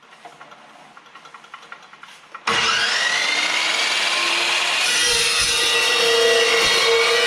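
A metal-cutting power saw starts suddenly about two and a half seconds in, its whine rising briefly, then cuts through quarter-inch steel with a loud ringing screech. Before that there are only a few faint light ticks.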